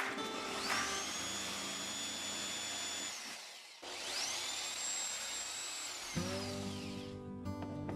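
Small electric power tool motor run twice: each time it spins up quickly to a high steady whine, holds for about two and a half seconds and winds down. Background music with guitar comes back loud near the end.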